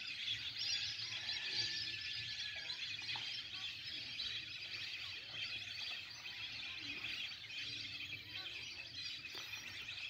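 A large flock of migratory waterbirds calling over a marsh: a steady, dense chatter of many high, overlapping calls.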